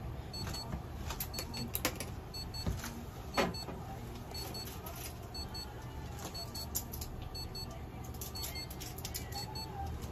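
Electronic equipment beeping in short high pairs, repeating about once a second, over a steady low machine hum. Scattered soft clicks, the sharpest about three and a half seconds in.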